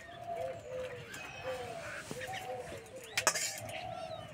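A dove cooing over and over in short, low calls. Liquid trickles through a steel mesh strainer into a bowl, and a sharp metal clink comes about three seconds in.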